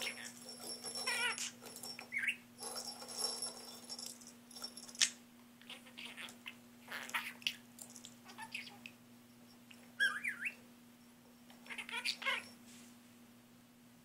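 Budgerigar giving short warbling chirps while it beaks and pushes a plastic lattice ball toy, with clicks and rattles from the ball in between.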